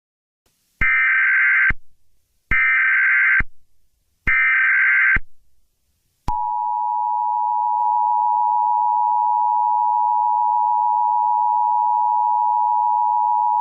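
Emergency Alert System broadcast signal. Three short bursts of SAME header data tones, about a second each, come first. At about six seconds in, the steady two-tone attention signal starts and holds without a break.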